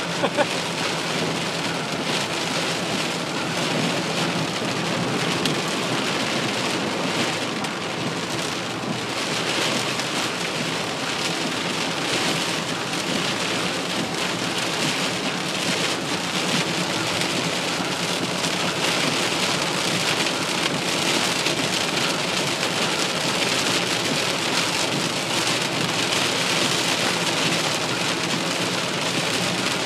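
Heavy rain beating steadily on a car's roof and windshield, heard from inside the cabin.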